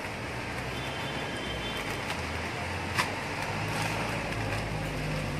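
Steady city street traffic noise with a low engine hum, and a single sharp knock about three seconds in.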